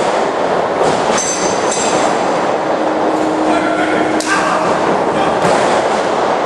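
Thuds of wrestlers hitting the ring canvas over a steady, loud, echoing din of the hall, with sharp impacts about a second in and again around four and five seconds in.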